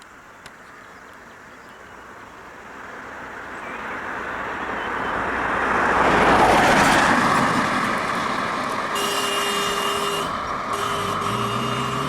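A motor vehicle approaching and passing close by, its noise building for about six seconds, peaking, then easing off. From about nine seconds in, a steady tone sounds with short breaks.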